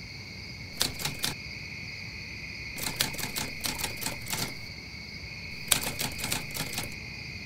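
Typewriter keystroke sound effect clicking in quick runs as caption text is typed out, over a steady high-pitched hum.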